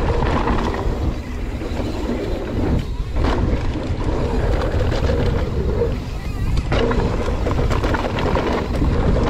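Mountain bike descending a dirt trail, heard from a camera mounted on the rider: wind buffeting the microphone over the rumble and rattle of the bike, with a couple of sharp knocks from bumps.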